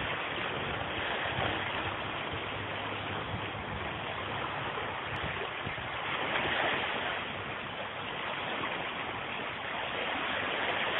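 Steady rush of running water, an even wash of noise.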